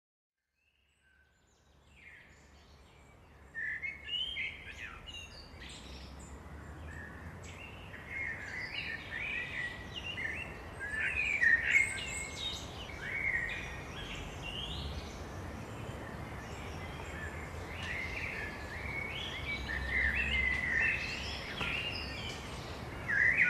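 Birds chirping and singing, a busy run of short high chirps that fades in about a second in, over a faint low rumble.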